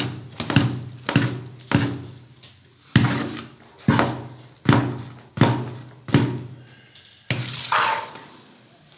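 Long metal ladle knocking and scraping against a large aluminium cooking pot while a pot of cooked rice is mashed hard to make it sticky and smooth. There is a ringing knock about once a second, and near the end one longer, brighter scrape.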